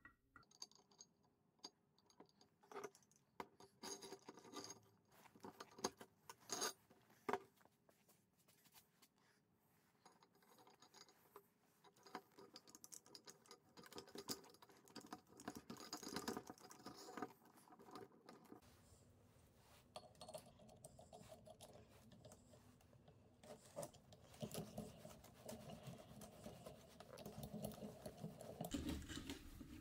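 Quiet, scattered metallic clicks, taps and clinks of small steel parts being handled and fitted together: a bearing, threaded rod and flat bar going into a steel tube stand. In the last third the sound turns denser, a steady rubbing and rattling of metal on metal as the grinder head with its chain sprockets is fitted on.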